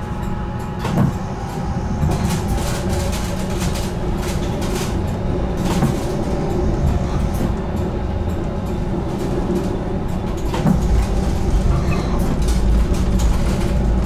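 GTL8 articulated tram running on its rails, heard from on board: a steady low rumble with scattered clicks and knocks from the wheels over the track, growing louder about ten seconds in.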